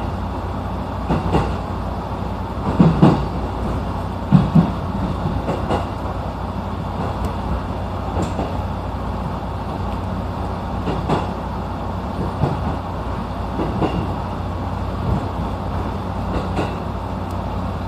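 Local train heard from inside the carriage while running: a steady low rumble and hum, with wheels clacking over rail joints in quick pairs of knocks, loudest about 3 and 4.5 seconds in.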